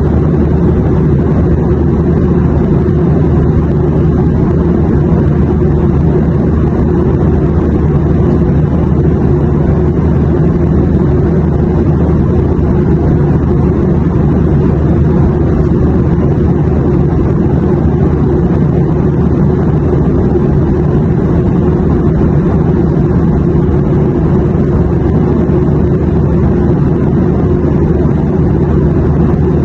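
Airplane noise: a steady, unchanging low drone and rumble, with most of its weight in the bass and no rise or fall.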